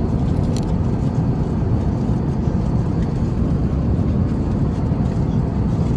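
Steady rushing cabin noise of an Airbus A350-900 airliner in flight, with a faint click about half a second in.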